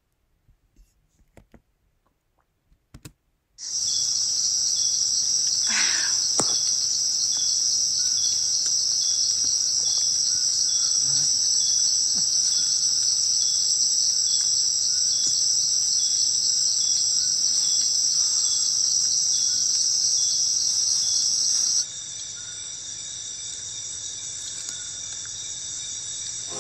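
Insect chorus, a dense steady high-pitched drone with a faint regular pulse under it, starting abruptly a few seconds in. Near the end it cuts to a quieter, different insect chorus. A short knock sounds about six seconds in.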